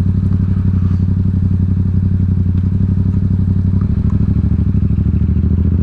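Yamaha XSR700's parallel-twin engine through a Two Brothers SR1 aftermarket exhaust, running steadily at low speed with a throbbing pulse. The note shifts slightly about four seconds in.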